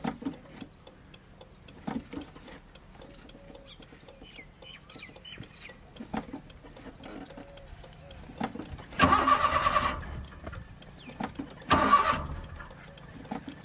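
A car's starter motor cranks the engine in two short bursts of about a second each, roughly three seconds apart. The engine does not catch: a car that won't start.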